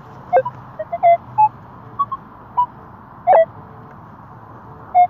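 A metal-detecting pinpointer probe chirping as it is worked around a freshly dug hole to check for further targets: short, irregular electronic beeps at changing pitches, the loudest about three seconds in and again near the end.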